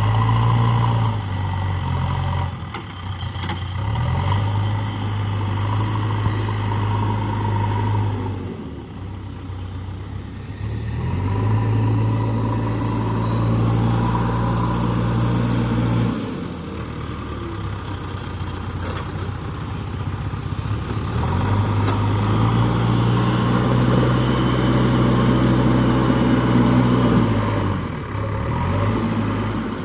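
JCB backhoe loader's diesel engine running and repeatedly picking up revs and dropping back as the machine is worked under load, a load test after repair. Its note rises and falls in cycles of several seconds, with a light clatter.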